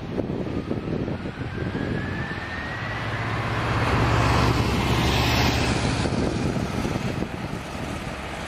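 McDonnell Douglas MD-11 freighter's three jet engines at takeoff power, the noise swelling to a peak about four to five seconds in and then easing off as it goes past. A thin whine rises gradually in the first few seconds.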